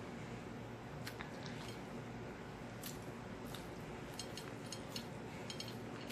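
Close-up eating sounds: chewing and mouth smacking, a scattered run of short wet clicks over a steady background hiss, more frequent in the second half.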